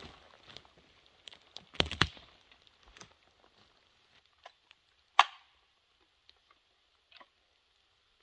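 Scattered footsteps and cracks of someone moving through forest brush, with one sharp crack about five seconds in, over a faint steady hiss.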